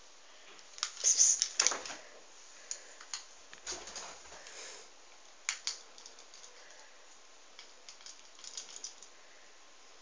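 Scattered clicks and short scrabbling bursts from a kitten and a small dog scrambling after a laser dot, claws ticking on a tile floor and scuffing cloth-covered furniture. The busiest scramble comes about a second in, with a few sharp taps later.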